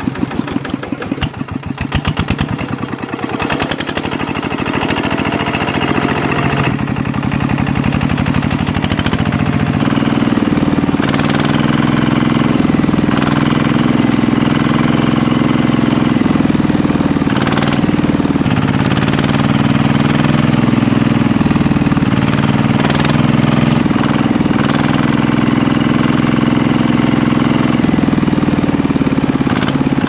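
Engine-like running of a miniature iron-wheeled power tiller: a rapid, even chugging at first that grows louder and steadier about ten seconds in as the machine works through mud.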